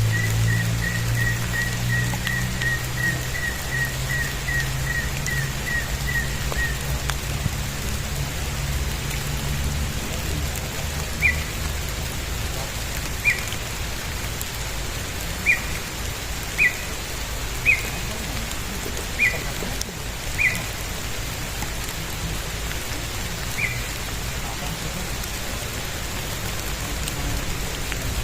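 Steady rain falling, with a low rumble fading out over the first several seconds. A high chirp repeats quickly for about the first seven seconds, then comes back as about eight single short chirps spread through the rest.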